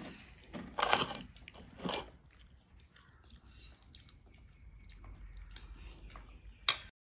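Quiet eating sounds as biryani is mixed and eaten by hand from a plate. There are short noisy bursts about one and two seconds in, faint rustling later, and one sharp click just before the end.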